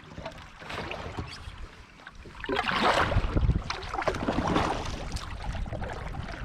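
A kayak being worked along a river: water splashing and scattered knocks against the hull, loudest about halfway through.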